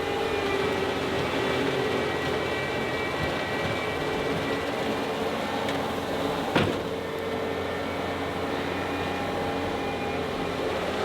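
John Deere 325G compact track loader's diesel engine running steadily while moving dirt, with one sharp knock about six and a half seconds in.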